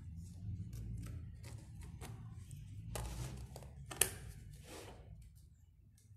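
A few clicks and knocks as paint pots and jars are picked up, moved and set down on a work table during a brush change, the sharpest knock about four seconds in, over a low steady hum.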